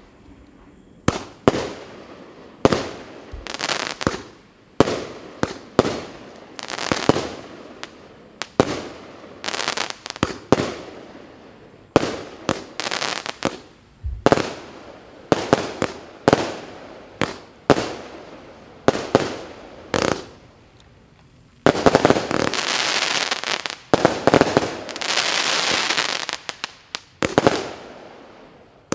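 PIROFF 'Illusion' combined firework battery firing. It gives a rapid string of sharp bangs at about one to two a second, each trailing off in a short crackle. About two-thirds of the way through come two long stretches of dense continuous crackling, a few seconds each.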